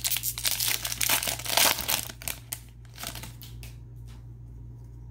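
Plastic trading-card pack wrapper crinkling and crackling as it is torn open and handled, dying down after about three seconds into a few light clicks.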